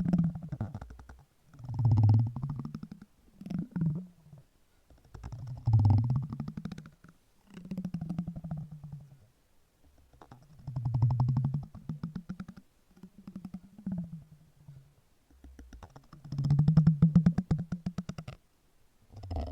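Silicone being rubbed close to the microphone, giving low, rapidly pulsing, purr-like buzzes. They come in about ten separate strokes of one to two seconds each, with short pauses between.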